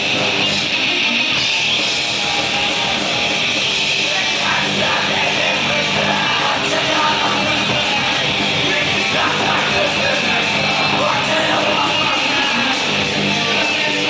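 Rock band playing loud and live: electric bass, electric guitar and drum kit, with a sung vocal near the end.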